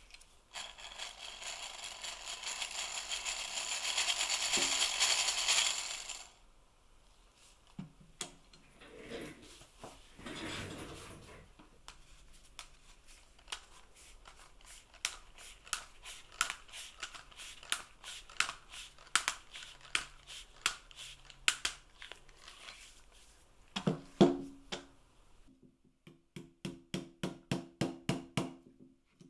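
Antique wooden hand-crank massager spun by its crank: a whirring, rattling run of the gearing that grows louder for about five seconds and then stops. Light clicks of handling follow. Near the end, a small hammer taps about three or four times a second, tacking a brass nameplate onto the wooden handle.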